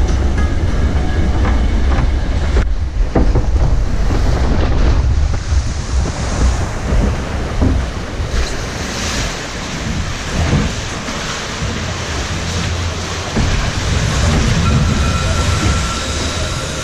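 Rushing water and the rumble of a log flume boat moving through its channel, with wind buffeting the action-camera microphone.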